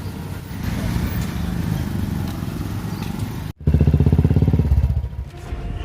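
A motor vehicle engine running steadily. It cuts out abruptly about three and a half seconds in, then comes back louder and pulsing for about a second and a half.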